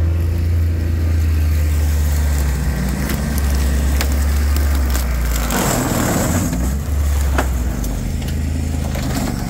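Side-by-side engine running steadily while the machine creeps through brush. Its note changes about halfway through, and there is crackling and a few sharp snaps as sticks and brush are crushed under the tyres.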